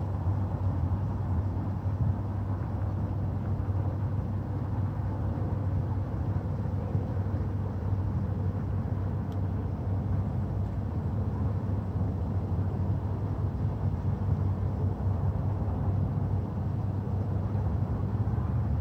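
Steady low rumble of outdoor background noise, even throughout, with no distinct events apart from a faint tick about nine seconds in.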